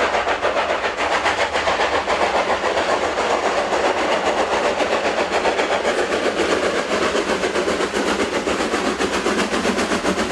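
Train running steadily, a continuous rumble with a fast, even rattle throughout.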